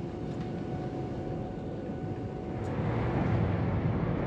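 Siemens Velaro TR high-speed train running at speed, heard inside the passenger car: a steady low rumble of wheels and running gear with a faint steady whine. The rumble gets louder about three seconds in.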